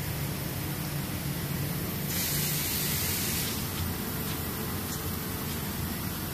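Steady low machinery hum, with a loud hiss starting about two seconds in and lasting about a second and a half.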